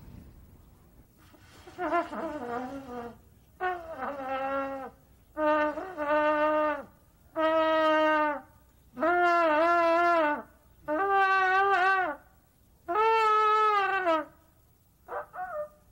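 A trumpet played by a beginner: about seven held notes, each a second or so long with short breaks between, climbing unevenly in pitch like a faltering scale and wavering a little, with a few short blips near the end. The playing is not right yet.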